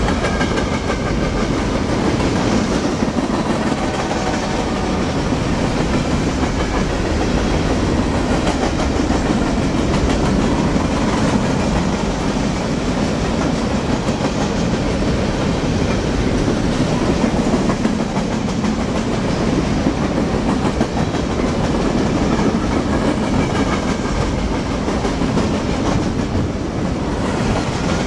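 Freight train cars rolling past close by: a steady rumble of steel wheels on the rails with clickety-clack.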